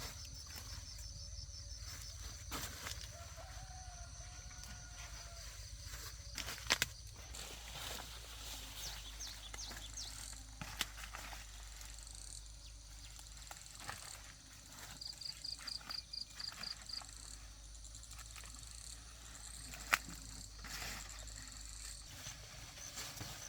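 Outdoor rural ambience with insects trilling steadily. A few sharp knocks fall about 7, 11 and 20 seconds in, and a quick run of about eight high chirps comes about two-thirds of the way through.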